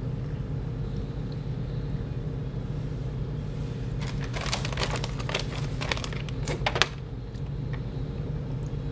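Crinkling of a silver plastic mailer bag being picked up and handled: a run of sharp crackles from about four seconds in, lasting roughly three seconds, over a steady low background hum.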